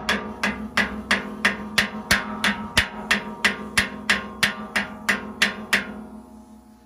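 Hammer striking the steel disc of a wood chipper at a steady pace of about three blows a second, each blow ringing the metal. The blows stop near the end and the ringing fades out.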